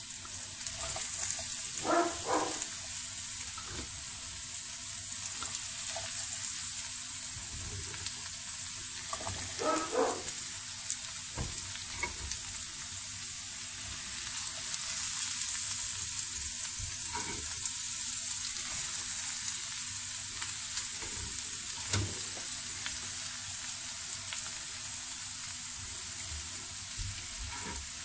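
Diced vegetables frying in hot oil in a non-stick crepe pan: a steady sizzle, with scattered knocks and clatters as pieces go in and are moved about, the loudest about two and ten seconds in.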